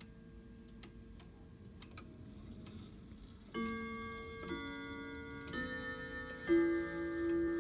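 Grandfather clock ticking faintly. About three and a half seconds in, its chimes start playing a melody, a new ringing note roughly every second, set off by turning the hand to the 6.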